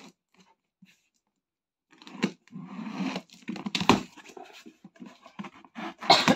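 Cardboard carton being opened by hand: a few faint ticks, then from about two seconds in a run of rustling and scraping as the flaps are pulled apart and handled, with two sharp knocks, one near the middle and one near the end.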